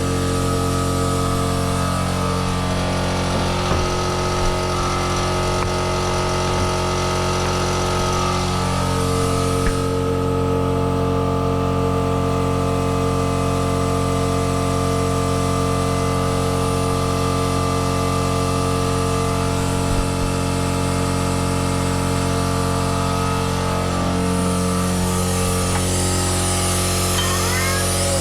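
Vacuum brake bleeder running steadily, a constant hum with a hiss over it, drawing old brake fluid out through an open bleeder valve.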